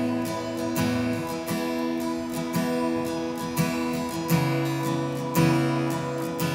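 Background music: strummed acoustic guitar chords at a steady pace.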